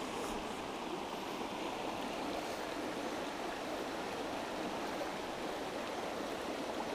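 Small rocky creek running over stones: a steady, even rush of flowing water.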